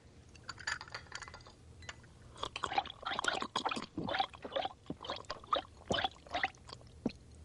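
Hot tea poured from a teapot into a china cup, with quick clinks and taps of cup and saucer. The clinking is thickest from about two seconds in.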